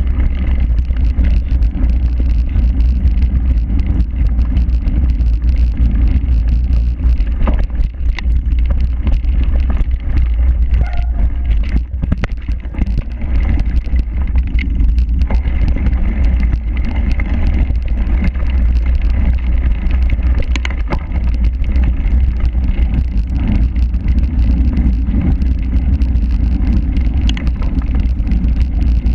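Heavy, steady low rumble of wind buffeting and jolting on an action camera riding on a cyclocross bike over grass and dirt, with scattered small rattles and knocks from the rough ground.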